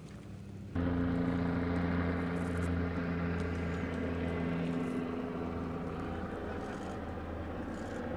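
Helicopter flying overhead: a steady engine and rotor drone with a hum of several tones, starting abruptly about a second in and easing slightly in loudness.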